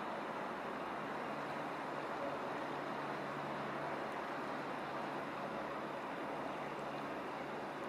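Steady rushing background noise, with a faint low hum that fades about halfway through.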